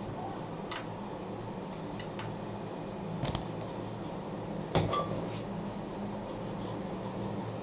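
Kitchenware being handled: a handful of separate knocks and clinks of a bottle and utensils set down and picked up, the loudest about five seconds in, over a steady low hum.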